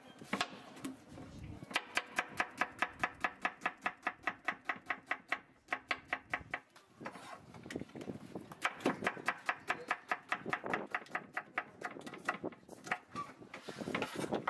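Kitchen knife slicing a peeled onion on a wooden cutting board, the blade knocking the board in quick, even strokes of about six a second. The strokes come in two fast runs with a pause between them, then a few scattered cuts near the end.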